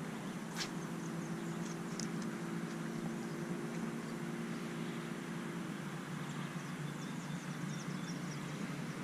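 Outdoor lakeside ambience: a steady low rumble with a steady hum over it that stops about six seconds in. A single sharp click comes early, and scattered small high chirps run throughout.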